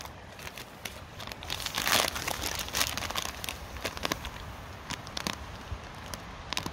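Plastic MRE ration packets crinkling and rustling as they are handled, with irregular crackles; the loudest burst of rustling comes about two seconds in.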